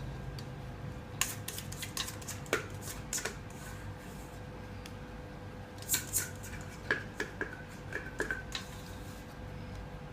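Kitchen utensils clinking and tapping against a bowl and cake pan as cheesecake batter is poured and scraped into the pan: scattered sharp clicks, a few with a short ringing tone, busiest in the second half.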